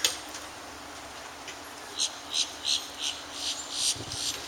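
Walking footsteps, short scuffing steps about three a second that start about two seconds in, after a single sharp click at the very start.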